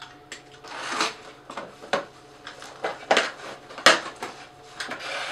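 A cardboard shipping box being opened and its packing handled by hand: irregular rustles and scrapes with a few sharp knocks, the loudest about four seconds in.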